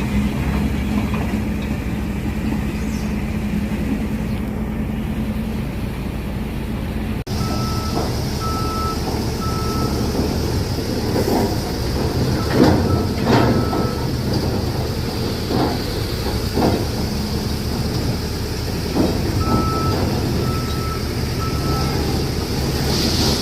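Engine of heavy construction machinery running steadily, with a reversing alarm sounding in short runs of three beeps and a few scattered knocks.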